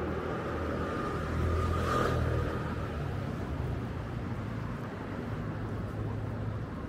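Steady city road-traffic rumble, with one vehicle passing closer and loudest about two seconds in.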